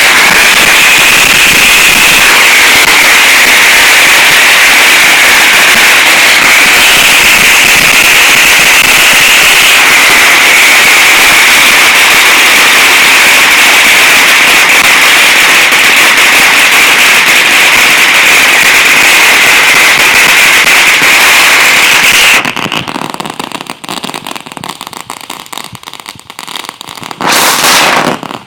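A long string of firecrackers going off as one dense, continuous rapid crackle, very loud. It stops abruptly about 22 seconds in, leaving scattered pops, then one short loud burst of crackling near the end.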